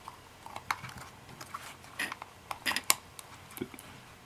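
A stiff rubber model tire and its plastic wheel ring being worked together by hand: scattered light clicks, taps and rubbing, with a few sharper clicks about two to three seconds in.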